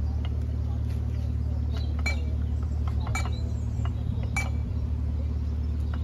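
Cast-iron lock paddle gear being wound with a windlass: the ratchet's pawl gives sharp metallic clinks about a second apart, over a steady low hum.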